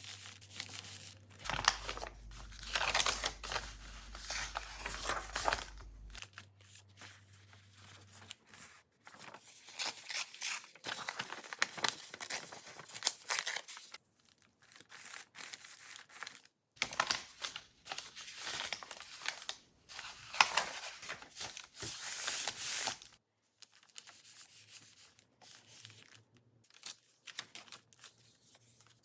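Paper being torn and handled: several spells of tearing and rustling, with quieter crinkles and rubs near the end.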